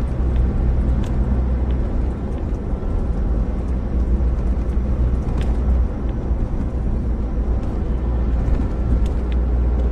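Steady low rumble of a car's engine and tyres on the road, heard from inside the cabin while driving along a highway.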